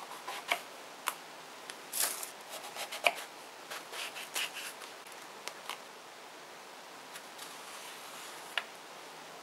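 A kitchen knife cutting a long purple eggplant on a plastic cutting board: irregular sharp clicks of the blade meeting the board and short crisp slicing strokes through the flesh. The strokes are loudest and most frequent in the first three seconds, then sparser and lighter as the halves are scored.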